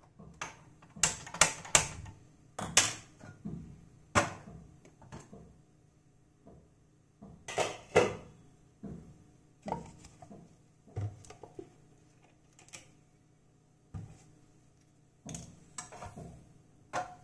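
Sharp clicks and clatters at uneven intervals: a hand-held gas lighter clicking at a stove burner, and a glass lid and a kadai knocked against the gas stove.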